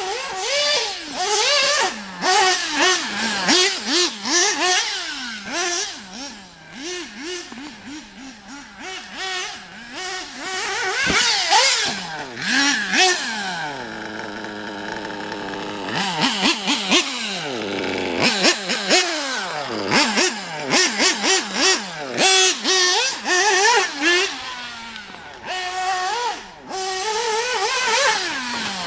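Nitro RC car's Alpha Plus Pro Spec .21 engine on an OFNA 063 tuned pipe, revving up and falling back again and again as the car is driven, with a steadier held note about halfway through.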